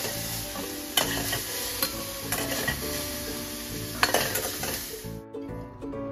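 Browned onions sizzling in hot oil in a steel kadai while a metal spatula stirs and scrapes them out, with a few sharp clinks of the spatula against the pan. The sizzle cuts off abruptly about five seconds in.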